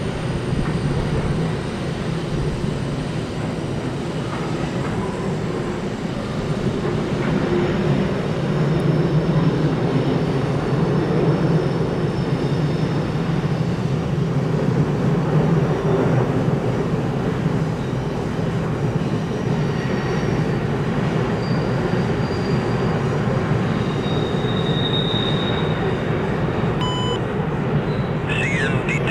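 Covered hopper cars of a CN grain train rolling across a steel trestle bridge: a steady, loud rumble of wheels and cars on the bridge, with a faint high squeal at times.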